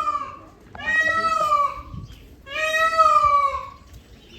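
Peacock calling: a series of loud, drawn-out meow-like calls, each about a second long and sliding down in pitch at the end, about one every one and a half seconds.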